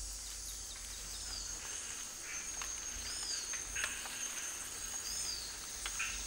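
Forest ambience: a steady, high-pitched insect drone, with a short chirp that rises and falls repeating about every two seconds and a few faint ticks.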